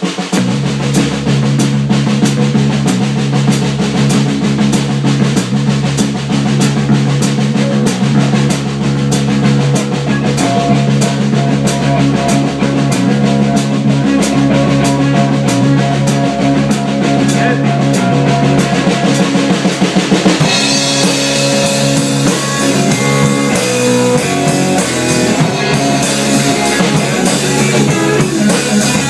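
A band playing live: a drum kit keeps sharp beats about twice a second over amplified electric stringed instruments holding low notes. About 20 seconds in the drumming changes and the cymbals open up into a steady wash.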